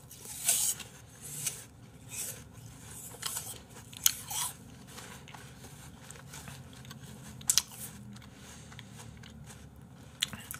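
Two people biting into and chewing raw apple slices, with irregular crisp crunches and a few sharper bites among softer chewing.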